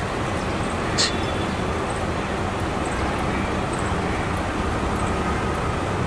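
Steady street traffic noise, with a single sharp click about a second in.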